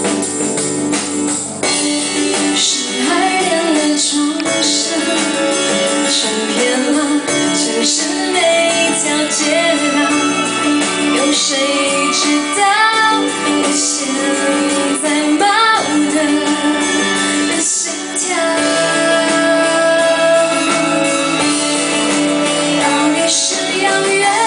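A woman singing live into a handheld microphone, with instrumental accompaniment.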